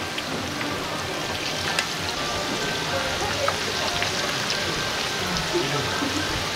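Tempura frying in a large flat fryer of hot oil: a dense, steady crackling hiss of bubbling oil, with scattered sharper pops.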